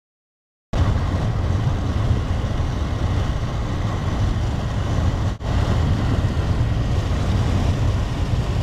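Road and wind noise from a moving car on a highway: a steady low rumble with hiss, wind buffeting the microphone. It starts abruptly about a second in and breaks off for an instant about five seconds in.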